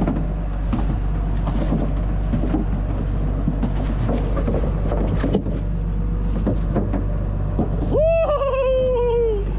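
A sport-fishing boat's engines drone steadily under a hiss of wind and water, with scattered knocks and thumps on the deck. About eight seconds in comes one long shout that falls in pitch.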